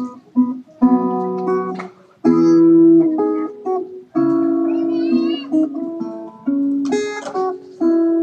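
Acoustic guitar playing a song's instrumental intro, chords ringing out one after another with short breaks between them. A brief high wavering sound comes through about five seconds in.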